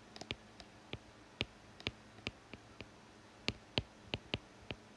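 Stylus clicking and tapping on an iPad's glass screen while handwriting a word: a string of short, sharp, irregularly spaced clicks.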